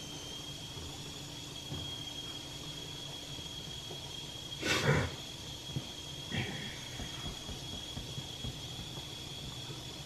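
Whirlpool built-in dishwasher running: a steady low hum with a thin, steady high whine over it. About five seconds in comes a brief, louder rush of noise, and a smaller one follows a second and a half later.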